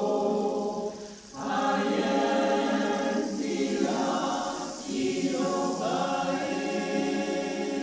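Large mixed choir singing a Yoruba chant in held chords, with short breaks between phrases about a second in and again near five seconds.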